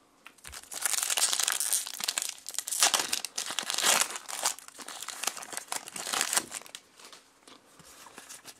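Foil Pokémon booster pack wrapper being torn open and crinkled in the hands, starting about a second in and dying down after about six seconds.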